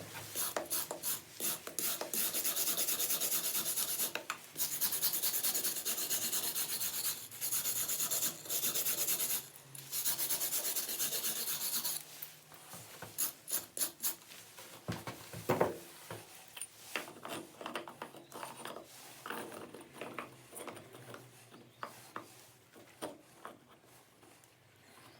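A hand tool scraping and rubbing over masonry in long, even strokes of one to three seconds. About halfway through it gives way to quieter, shorter scrapes and taps, with one sharper knock.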